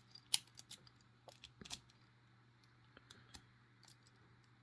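Scattered light metallic clicks and taps from a small TSA luggage padlock being handled, the sharpest about a third of a second in, over a faint steady low hum.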